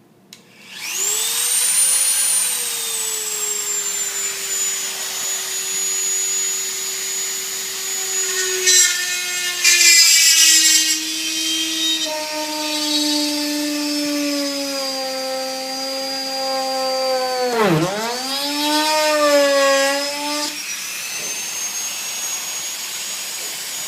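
Electric hand drill with a 3/16-inch bit boring a rivet hole: the motor spins up about a second in with a steady whine, then drops in pitch and strains under load. Near the end it nearly stalls, picks up again, and then runs on more quietly.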